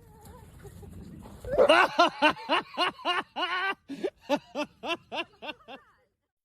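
A person laughing: a long run of quick 'ha' pulses starting about a second and a half in, fading toward the end, after a low rumble.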